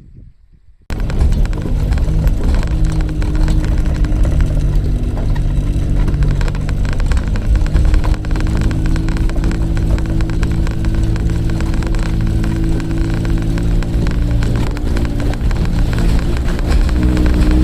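Suzuki Jimny running: a steady engine hum over heavy low rumble that starts abruptly about a second in.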